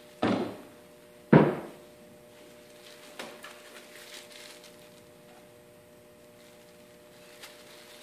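Two sharp wooden knocks about a second apart, then a few lighter clatters, as glued wooden mast box pieces are handled and set down on the wooden hull deck.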